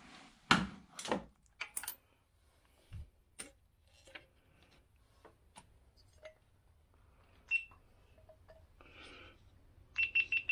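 Scattered clicks and knocks of hand tools and parts being handled in a car's engine bay, loudest in the first second or so. Near the end a quick run of short high beeps starts.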